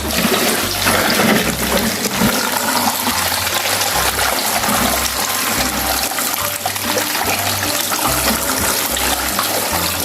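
Water running steadily over a toy sand truck as it is rinsed clean.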